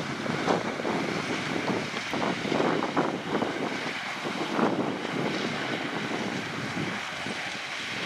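Sugarcane harvester at work beside a haulout truck: continuous machine noise with irregular louder surges and rattles as chopped cane spills from the elevator into the bin.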